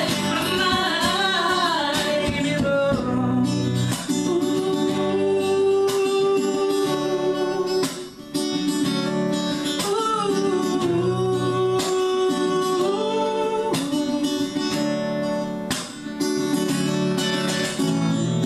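Live acoustic duet: strummed acoustic guitar with a man and a woman singing, holding long sustained notes.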